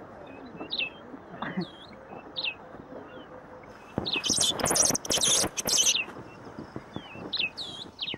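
Birds chirping in the background, short curved notes repeated every second or so. About halfway through comes a loud, scratchy burst of noise lasting about two seconds.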